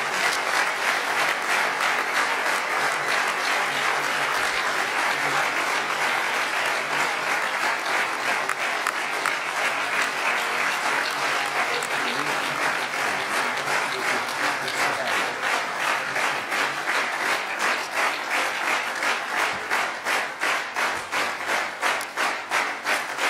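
An assembly applauding at length, dense and steady. Near the end the clapping falls into a rhythmic beat of about two to three claps a second.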